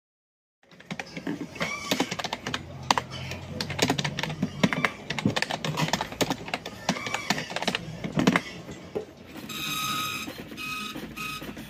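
Typing on a computer keyboard, a fast, uneven run of key clicks. About nine seconds in, a dot-matrix printer starts printing, its print head running in short repeated passes with a steady buzzing tone.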